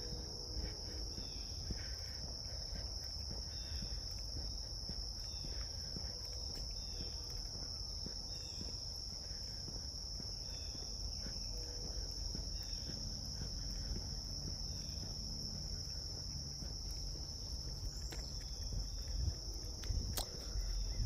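A steady, unbroken high-pitched insect chorus, with a low rumble underneath.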